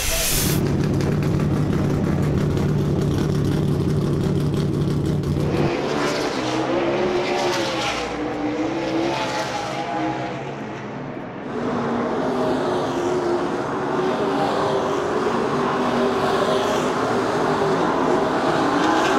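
NASCAR Cup cars' V8 engines: a steady low drone for about the first six seconds, then several engines at racing speed, their pitches rising and falling and overlapping as the cars go by.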